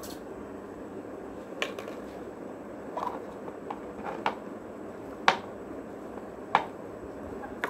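A few sharp clicks and taps of a small plastic LOL Surprise doll being handled and squeezed to make it spit water, about five spread out, the loudest a little past the middle, over a steady hiss of room noise.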